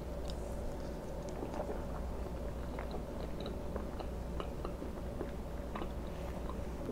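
Close-miked chewing of a mouthful of pancake, with many small mouth clicks throughout.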